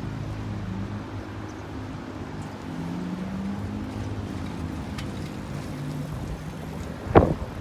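An engine running steadily, its pitch slowly rising and falling, with a single sharp knock near the end that is the loudest sound.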